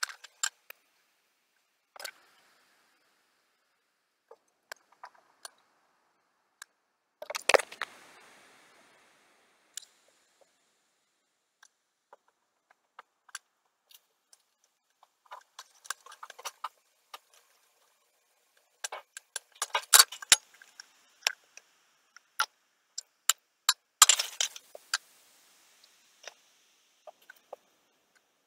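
Aluminium soda cans clinking and tapping as they are set one on top of another into a tall stack: scattered light metallic clicks, busier in a few short runs, with a louder clatter about seven seconds in.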